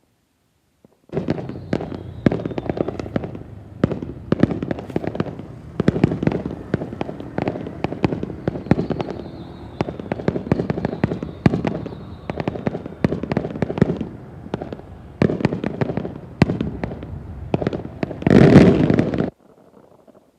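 Aerial fireworks display: a rapid, continuous barrage of bangs and crackles that starts suddenly about a second in, grows loudest near the end and then cuts off abruptly.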